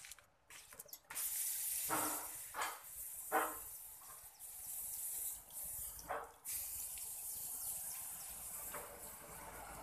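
A steady high hiss, with a few short knocks during the first several seconds.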